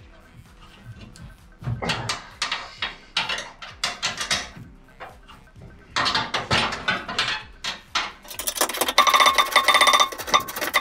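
Metal tools and fasteners clinking against the aluminium floor panels of a jet-boat hull as bolts are fitted. Near the end comes a ratchet wrench clicking rapidly for about two seconds while a floor bolt is run in; this is the loudest part.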